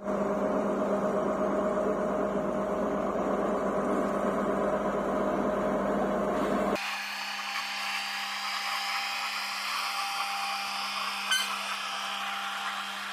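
Diesel train crossing a viaduct, its locomotive engine droning steadily with a whine over it. About seven seconds in, the sound abruptly turns quieter and thinner, and a single short click comes near the end.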